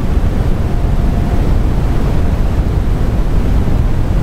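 Steady low rumbling background noise, like wind or air buffeting the microphone, with no distinct events.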